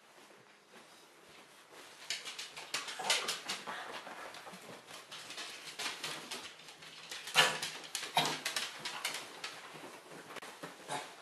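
A Cavalier King Charles spaniel and a Chihuahua whimpering with excitement in expectation of a walk, amid a stream of quick clicks and scuffles.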